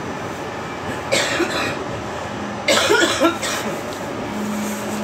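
Steady running noise inside a moving light-rail tram, broken by two short, harsh bursts, one about a second in and a louder one near three seconds. A steady low hum comes in near the end.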